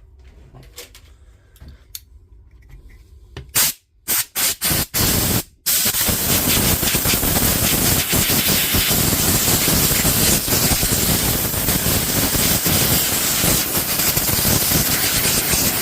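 Pressurised spray hissing as the inside of a DeWalt angle grinder is cleaned out: a few light clicks, then several short blasts about four seconds in, then one long continuous blast.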